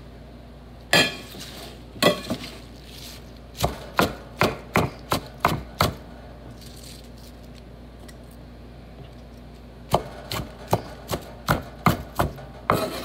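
Knife chopping fresh spinach on a wooden cutting board: a few separate chops, then a quick run of about three to four chops a second, a pause of several seconds, and a second quick run near the end.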